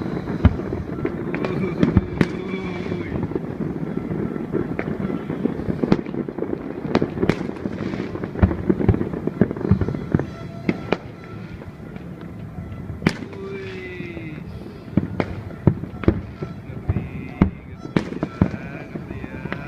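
New Year fireworks going off, with many sharp bangs and cracks at irregular intervals over a steady background of crowd noise and music.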